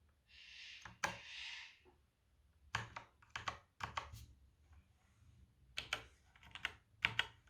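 Velocifire VM02WS wireless mechanical keyboard being typed on: two quick runs of sharp key clicks, after a brief soft rustle near the start.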